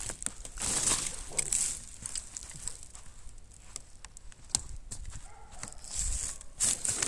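Mountain bike ridden over snow, heard from a camera mounted on the bike: frequent rattles and clicks, two stretches of tyre crunch and hiss about a second in and near the end, over a low rumble.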